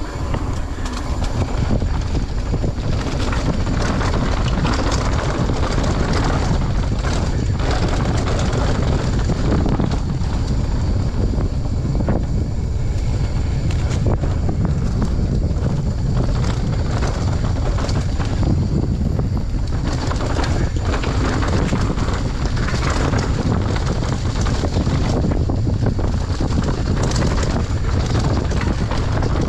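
Enduro motorcycle running along a trail, its engine mixed with heavy wind rumble on the microphone.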